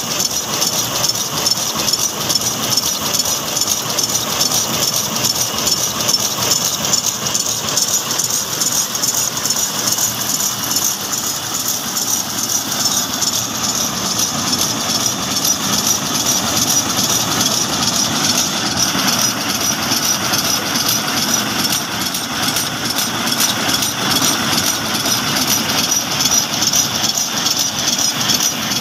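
Old stationary diesel engine with a large flywheel, belt-driving a pulley, running steadily at an even, unchanging pace.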